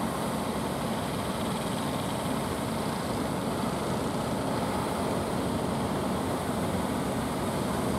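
Steady, even rush of sea surf breaking along a rocky shore.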